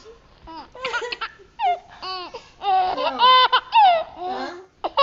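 High-pitched laughter in repeated short bursts.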